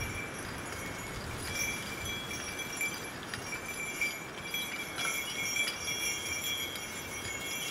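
Team of Belgian draft horses hauling a log sled over snow: the harness and chains jingle and clink in rings that come and go, over the steady noise of the loaded sled moving along the trail.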